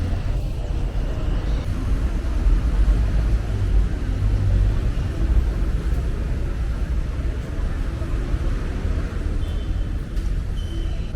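Steady city-street traffic noise: the constant low rumble of passing motor vehicles on a busy road, with a couple of short high tones near the end.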